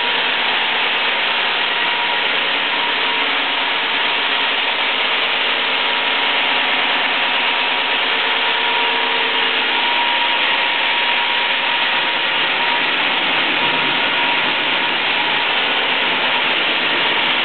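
BV-Tech FTBV/1600-2000 bridge saw running steadily, its large circular blade cutting a stone block, with a faint steady whine in the noise.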